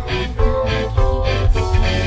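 Instrumental backing-track music led by guitar, with notes changing every fraction of a second over a pulsing bass.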